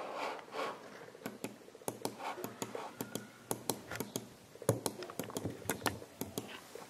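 A short rubbing at first, then many quick, irregular plastic clicks, several a second, from a hairbrush-shaped computer mouse being clicked.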